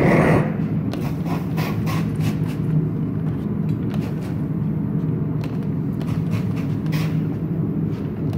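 A propane torch's flame noise cuts off about half a second in. Then a hand trigger spray bottle squirts liquid onto the hot bronze bust in a series of short hisses, over a steady low hum.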